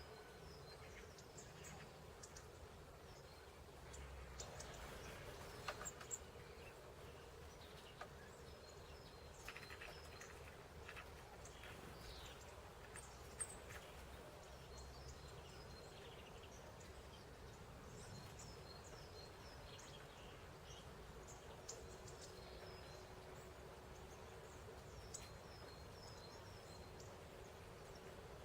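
Faint, short, high chirps and calls of small birds scattered throughout, with a few sharp clicks and a low steady hum underneath.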